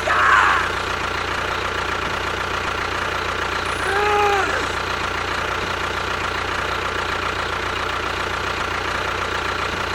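A small motor whirring steadily with an unchanging pitch. There is a short burst of noise right at the start, and a brief rising-and-falling tone about four seconds in.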